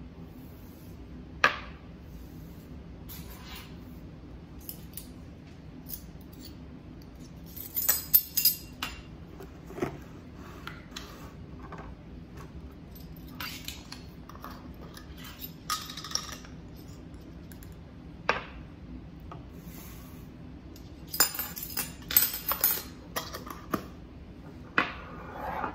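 Metal measuring spoons, jars and a plastic cap clinking and knocking on a countertop as they are handled and set down: scattered single clicks and short clatters, busiest about eight seconds in and again near the end, over a steady low hum.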